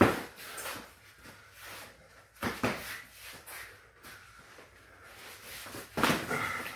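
Thuds of boxing-glove punches landing during kickboxing sparring: three main hits, near the start, about two and a half seconds in, and about six seconds in, the last with a brief squeak.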